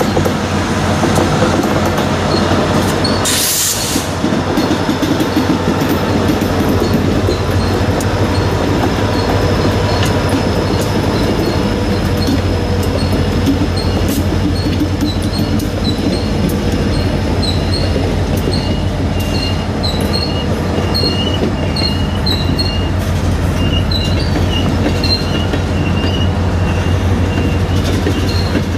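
CSX freight train passing close by: diesel locomotives rumbling past, then loaded tank cars rolling by on the rails, with a long run of short high wheel squeals through most of the passage. A brief hiss sounds about three seconds in.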